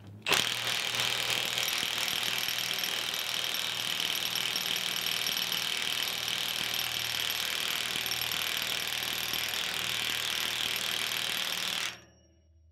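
Milwaukee M18 FUEL 2867-20 1-inch cordless impact wrench hammering steadily on a 40-year-old rusted nut on a loader bucket's cutting edge. It starts abruptly and runs for about eleven seconds, then stops. The nut stays seized on its bolt.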